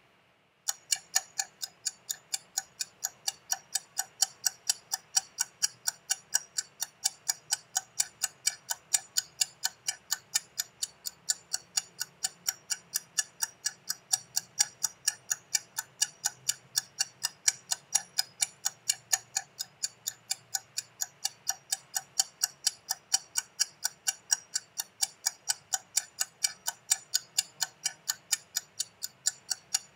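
Ticking sound effect of a software countdown timer running down one minute: quick, perfectly even ticks, about four a second, starting just under a second in.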